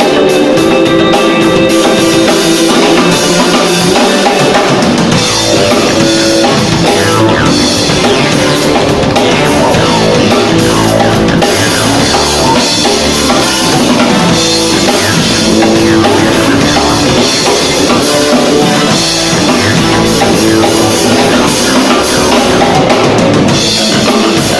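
Live band playing rock music on drum kit and guitar, with the bass and drums coming in fully about four seconds in.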